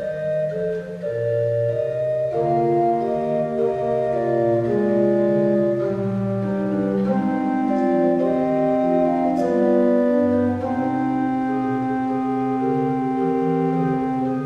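Church organ playing a slow piece of sustained chords that change every second or so over a moving bass line.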